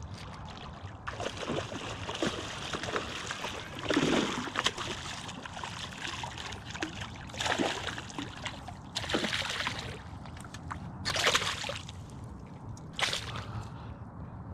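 Water sloshing and splashing in several separate bursts over a steady outdoor background.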